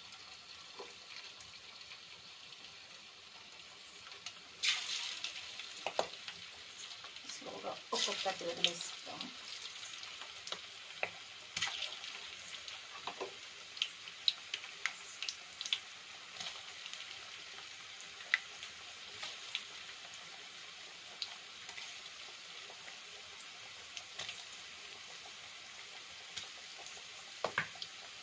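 Battered chicken pakoda pieces deep-frying in hot oil in a kadai, the oil sizzling with many sharp crackles and pops. The sizzle grows louder about five seconds in as more pieces go into the oil.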